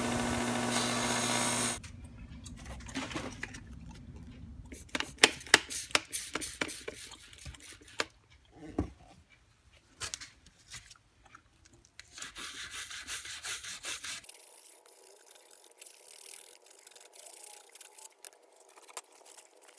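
A power tool running with a steady hum cuts off sharply just under two seconds in. Then comes hand work on a toolbox: uneven scraping and rubbing with scattered clicks and knocks, and a stretch of louder hissing scraping about two-thirds of the way through.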